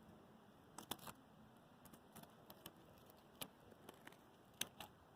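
Faint, irregular clicks and light crackles over near silence: about a dozen sharp ticks, the loudest about a second in and near the end.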